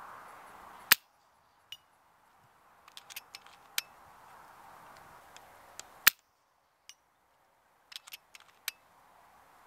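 Two shots from a sub-12 ft·lb FX Impact PCP air rifle, about five seconds apart, each a single sharp report. Runs of lighter clicks come between the shots and after the second.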